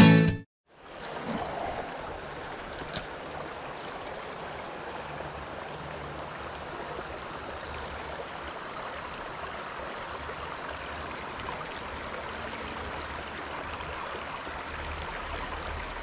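Shallow stream water running steadily over rocks. A single sharp click about three seconds in.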